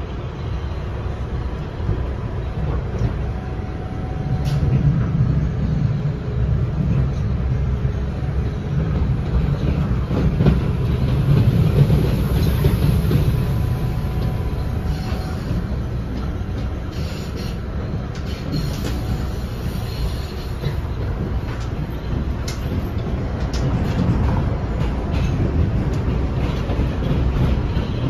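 Inside a PATH PA5 rapid-transit car running along the track: a steady low rumble of the wheels, with scattered clicks and knocks from the wheels on the rails. It grows louder for several seconds in the middle.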